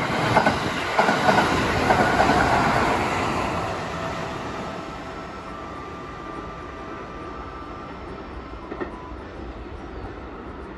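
Kintetsu electric charter train passing through a station without stopping. Its wheels clack over the rail joints, loudest in the first three seconds, and the sound then fades as the train runs off into the distance.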